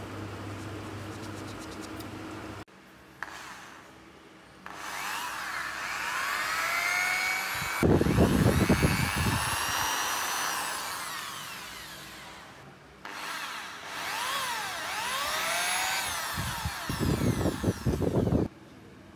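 Electric drill press spinning up with a rising whine and its bit cutting into a steel M8 bolt clamped in a vise, the grinding loudest about eight seconds in. The motor stops, starts again and bites in once more for the second hole, cutting off near the end.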